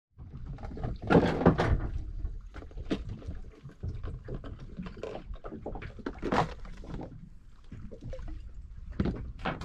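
Scattered knocks and thumps aboard a small fishing boat, over a steady low rumble.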